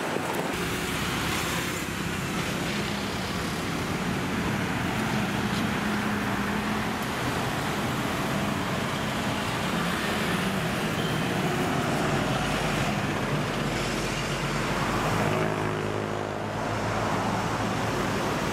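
Busy road traffic: cars, minivans and motorbikes driving past in a steady stream, with one engine passing close about fifteen seconds in.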